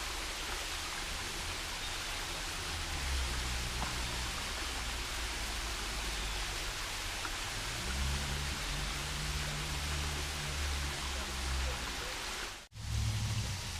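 Steady rush of flowing water from Honey Run, a creek with a cascade waterfall, with a low rumble swelling under it in the middle. The sound drops out for an instant near the end.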